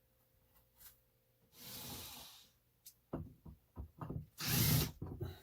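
A power drill runs in two short bursts, with irregular knocks and rattling of tools and hardware being handled in between.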